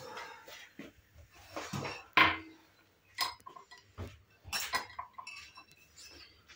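Kitchenware clinking and knocking as a strainer and pot are handled to strain a cooked remedy: a series of separate clinks, some ringing briefly, with one sharp knock about two seconds in the loudest.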